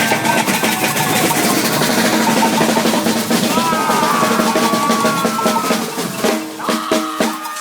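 Maracatu percussion ensemble playing: alfaia bass drums and snare drums in a dense, driving groove. About six seconds in, the groove breaks into separate, spaced strokes.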